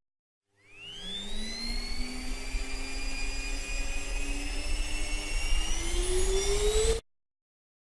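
Vacuum cleaner motor spinning up: a whine that rises in pitch over about a second and then holds, with a steady rushing of air. It climbs again shortly before cutting off suddenly.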